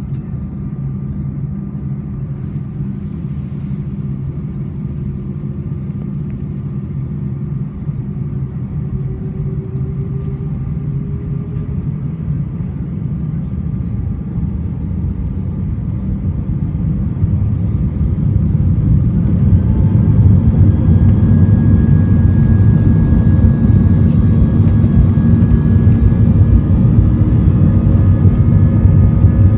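Airbus A320 jet engines heard inside the cabin from a window seat: a steady rumble with a faint whine while the plane moves on the ground, growing clearly louder over a few seconds about two-thirds of the way in as the engines spool up to more thrust.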